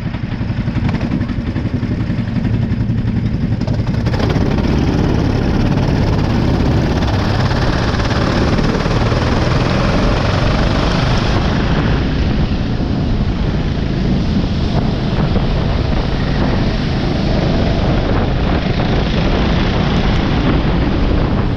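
Go-kart engine running under way, heard from onboard the kart, with a steady hiss of wind and spray on the wet track. It gets louder and brighter about four seconds in and eases slightly around twelve seconds.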